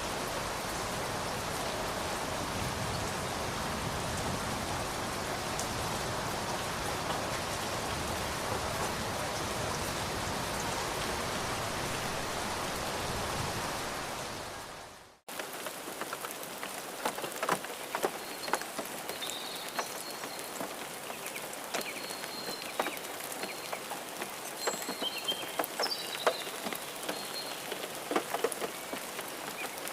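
Steady, dense rainfall that fades out about halfway through. A different rain recording then starts: lighter rain with many scattered drips and splashes, and a few short high chirps.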